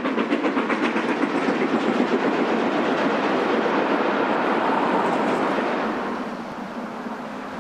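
Steam-hauled passenger train passing close behind LMS Princess Royal class Pacific 6201 Princess Elizabeth. Rapid even beats, about five a second, fade within the first second into the steady rumble of the coaches rolling by. About six seconds in the sound drops to a quieter, more distant level.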